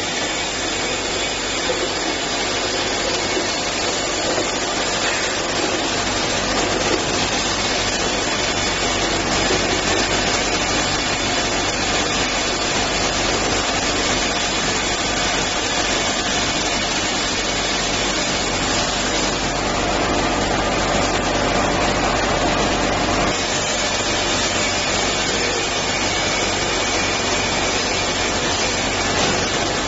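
Popcorn bottle packaging machine running: a steady, dense mechanical noise with a low hum beneath it, from the motors and conveyors of the bottle-feeding turntable and filling line.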